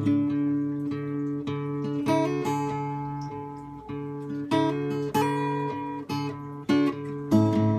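Acoustic guitar played solo in a slow country-folk passage, plucked and strummed chords ringing out with a new chord every second or so.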